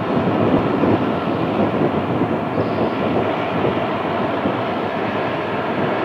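Jet engines of a four-engine airliner at climb power after takeoff, a steady low rumble with a rough, crackling texture.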